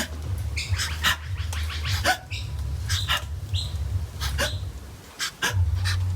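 Pet parrot making a quick, uneven series of short clicks and brief chirps, over a low rumble.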